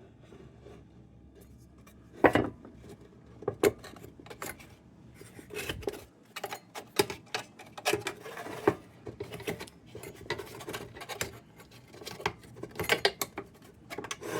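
Metal clinks, knocks and scrapes of a rusty steel lantern's globe guard being worked loose by hand, in irregular bursts with a sharp clank about two seconds in.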